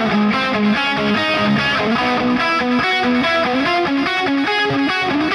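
Overdriven electric guitar with stock Wilkinson pickups playing a fast single-note riff, the notes stepping up in pitch toward the end.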